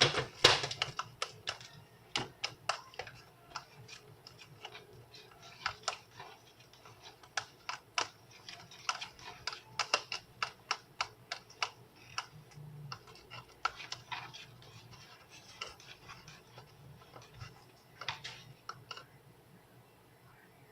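A utensil clicking and scraping against a bowl while stirring microwave-melted Starburst candies: irregular sharp taps, a few a second, thinning out near the end.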